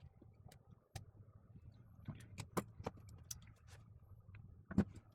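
Scattered light clicks and knocks of small parts being handled and set down, about a dozen, with one louder knock near the end, over a faint low hum.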